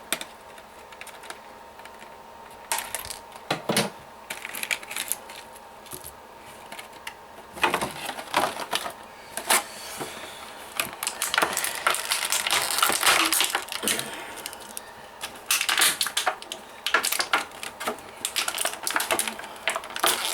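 Hard plastic clicking, tapping and crinkling as Bakugan toys are worked out of their plastic packaging. It comes as scattered clicks that thicken into busy runs in the second half.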